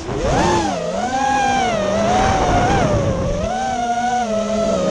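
FPV racing quadcopter's electric motors and propellers whining as it flies, the pitch rising and falling again and again as the throttle changes.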